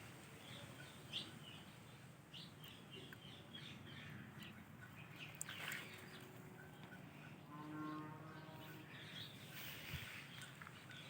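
Indian ringneck parrot chirping softly in short, scattered notes, with one longer buzzy call about two thirds of the way in.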